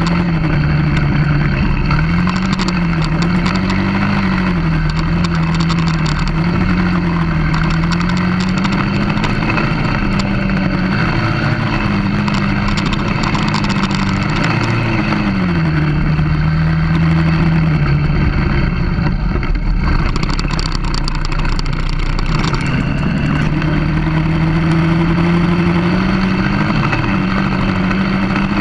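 Small 200cc mini quad engine running at speed, its pitch rising and falling with the throttle, dropping about halfway through and climbing again later. Wind rushes over the microphone throughout.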